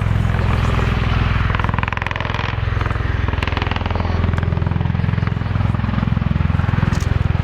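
Bell Boeing CV-22B Osprey tiltrotor in flight: the rapid, low beat of its proprotors over turbine noise, holding at a steady level.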